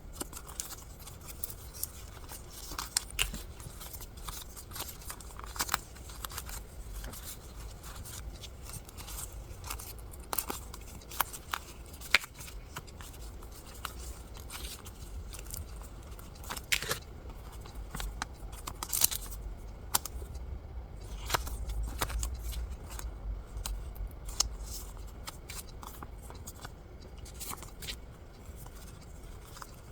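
Paper and packaging being handled close up: irregular rustles and small sharp clicks, a few louder ones scattered through.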